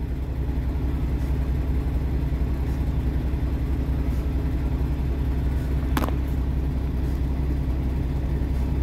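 Semi-truck's engine idling steadily, heard from inside the cab as a low, even hum, with one short click about six seconds in.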